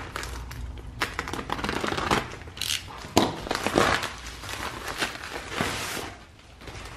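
Crinkling and rustling of a plastic bubble mailer as it is slit open with a utility knife and a cardboard package is slid out of it, with irregular sharp crackles and scrapes.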